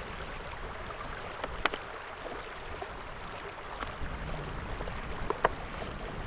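A few faint clicks and crinkles from a plastic water bottle with a screw-on squeeze filter as it is lifted and squeezed to drink filtered river water, over a steady outdoor hiss.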